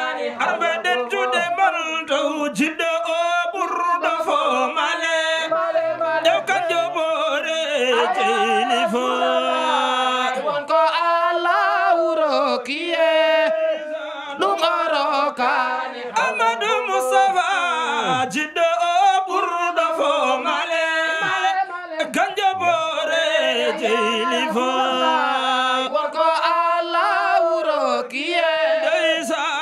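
A group of men singing an unaccompanied Islamic devotional chant of the Tijaniyya Sufi order, voices sustained and wavering in pitch without pause.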